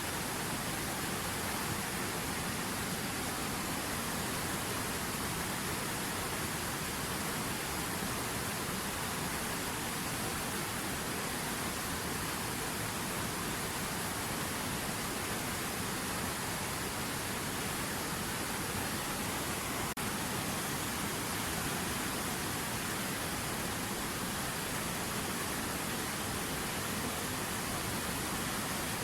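River water running steadily: an even, unchanging rush of flowing water.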